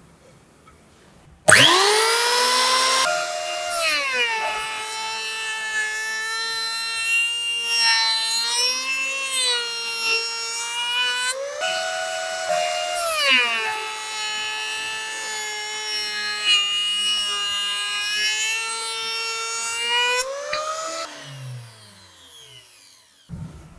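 Electric hand planer, mounted as a benchtop thickness planer, switched on with a quick rising whine and running loud. Its pitch sags as boards are fed through the cutterhead under load, with a brief rise about halfway through between cuts. Near the end it is switched off and winds down with a falling whine.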